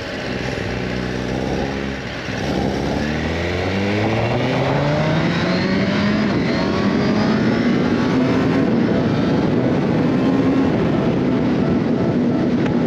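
Suzuki GSX-R1000R's inline-four engine under acceleration. Its pitch climbs steadily for several seconds from about two seconds in, then holds at a higher steady note.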